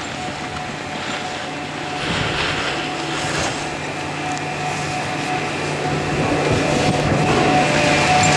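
Detachable quad chairlift running as the chair rides into the bottom station: a steady mechanical hum with rattling from the rope and wheels, growing louder near the end as the chair passes under the station machinery.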